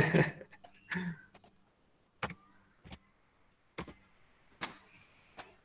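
Computer keyboard and mouse clicks: about five separate sharp clicks, roughly a second apart.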